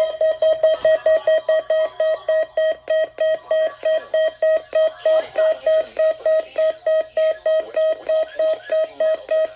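Weather alert radio receiver sounding its alarm: a loud, even beeping, about four beeps a second, set off by the NOAA Weather Radio required weekly test signal.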